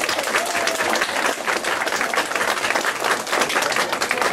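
Theatre audience applauding, many hands clapping steadily together.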